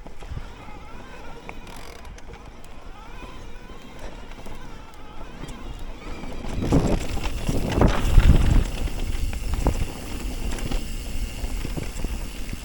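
Electric mountain bike riding down a rough trail: tyres on dirt and the bike rattling and knocking over bumps, with wind on the microphone. It gets louder and rougher about six seconds in, then eases a little.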